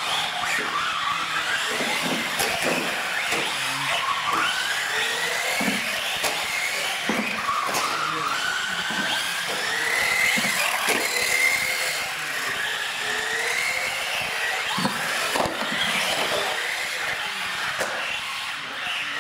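Radio-controlled UTV trucks racing, their motors whining in a high pitch that rises and falls as they speed up and slow down. Scattered short knocks run through it.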